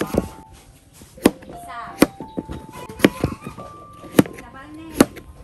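Kitchen knife chopping a peeled firm vegetable on a plastic cutting board: sharp knocks of the blade on the board, about one a second.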